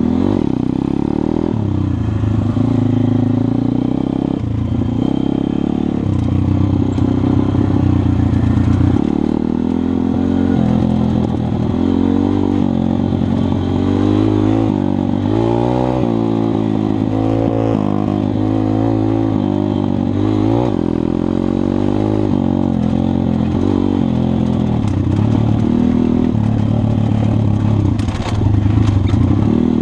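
MRF 140 RC pit bike's 140 cc single-cylinder four-stroke engine heard up close from the rider's helmet, revving up and down with the throttle as it rides over rough ground. A few sharp knocks and rattles come near the end.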